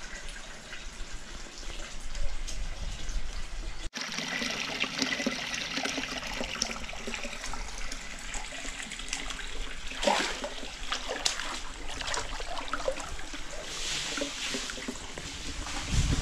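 Hot-spring water trickling and splashing as it flows continuously into a brimming open-air bath. The sound becomes louder and closer after a break about four seconds in.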